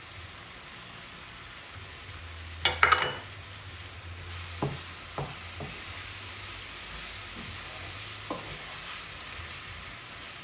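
Chicken curry sizzling gently in a frying pan while a wooden spatula stirs it. There is a brief loud clatter about three seconds in, then a few single knocks of the spatula against the pan.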